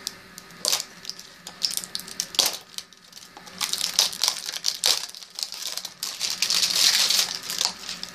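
A Funko Mystery Mini blind box being opened by hand. A few sharp clicks and snaps come from the small cardboard box, then a long run of crinkling and tearing from the foil bag inside, loudest about two-thirds of the way through.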